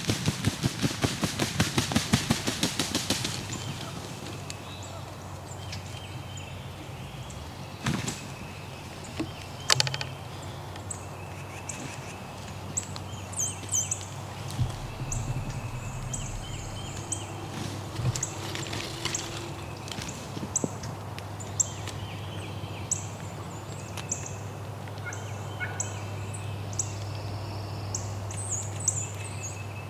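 Wild turkeys calling close by: a loud, rapid rattling gobble in the first few seconds, then quieter stretches with a few short sharp sounds, a low hum and small high chirps.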